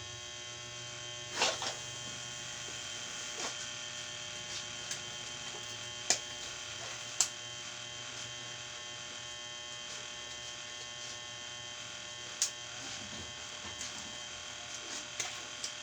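A small electric appliance buzzing steadily, with a few sharp clicks or knocks over it: one about a second and a half in, two louder ones about six and seven seconds in, and another near twelve seconds.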